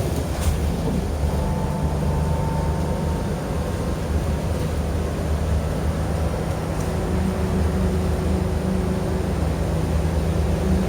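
Steady low hum and road noise of a city bus in motion, heard from inside the cabin.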